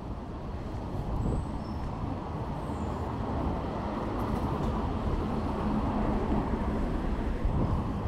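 A vehicle running close by: a steady low rumble with a faint hum, slowly growing louder.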